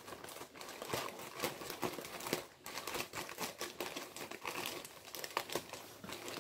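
Gift packaging crinkling and rustling in irregular crackles as it is unwrapped by hand.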